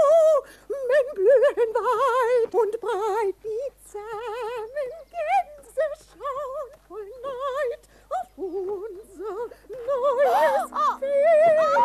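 A woman's voice singing a cartoon goose's song, one warbling note after another with wide, exaggerated vibrato. Near the end a second voice overlaps her and low steady tones sound underneath.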